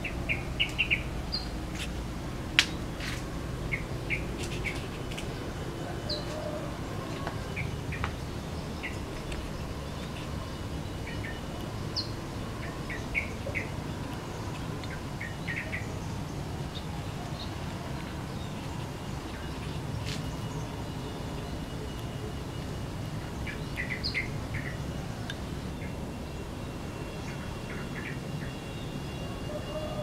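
Yellow-vented bulbul calling: short chirps in quick clusters of a few notes, repeated every few seconds, over a steady low background hum. A single sharp click about two and a half seconds in is the loudest sound.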